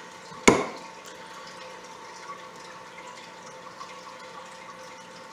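Shears snapping shut once through a mushroom coral's small ceramic base, one sharp click about half a second in, over a steady low background hum.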